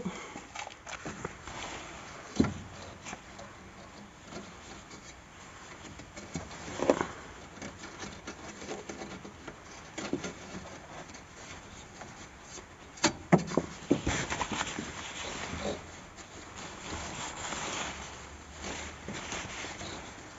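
A curtain being fitted onto its metal rod over a van window by hand: fabric rustling and rubbing, broken by scattered knocks and clicks. The sharpest clicks come about 13 seconds in.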